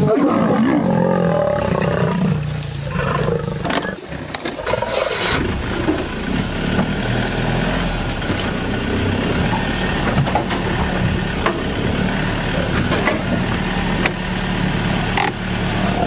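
A pride of lions growling in a fight as they maul a leopard, the growls harshest in the first few seconds. A safari vehicle's engine idles steadily underneath.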